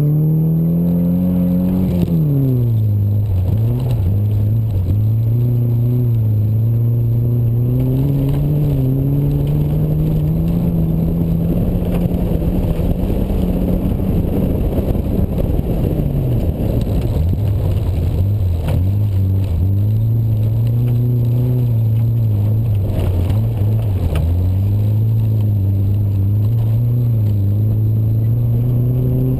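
Ford Festiva's small four-cylinder engine pulling hard on a dirt rallycross course, heard from outside the car. Its pitch drops sharply about two seconds in, then climbs slowly, and later falls and rises again several times as the driver lifts, shifts and accelerates between cones. A steady rush of tyre and wind noise runs under it.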